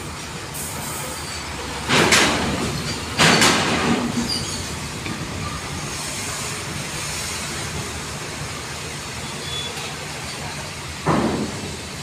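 Diesel trucks running steadily, with loud metallic clanks as truck wheels roll over the steel ferry ramp: two about two and three seconds in, and another near the end.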